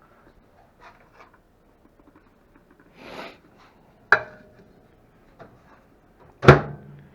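A frozen meal tray being put into a microwave oven: small clicks, a short scraping rustle about three seconds in, and a sharp clack a second later. Near the end the microwave door shuts with a heavy thud, the loudest sound.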